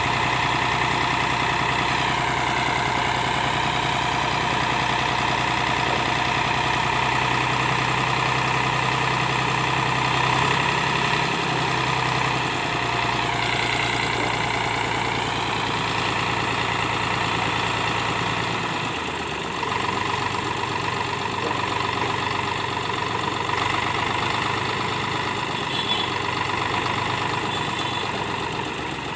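Eicher 548 tractor's three-cylinder diesel engine running steadily while it drives the hydraulics that tip the loaded trolley bed. Its note shifts and eases off a little about two-thirds of the way through.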